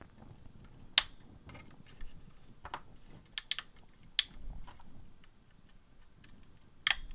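Small sharp plastic clicks and knocks as a plastic electronics case is handled and green pluggable terminal-block connectors are pushed into its ports. The clicks come singly and irregularly, the sharpest about a second in, with a close pair near the end.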